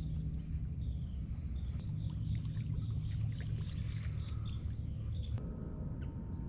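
Steady low rumble of a kayak on open water, with faint high chirping over it; the sound changes abruptly about five seconds in.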